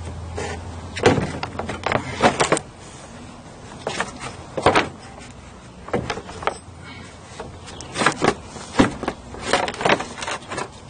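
Plastic radiator fan shroud being worked into place against the radiator: irregular knocks and scrapes of hard plastic on plastic and metal.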